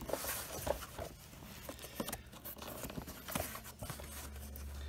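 Hands handling a corrugated cardboard shipping box: irregular light taps, rubs and scrapes of fingers on the cardboard, with a low hum coming in near the end.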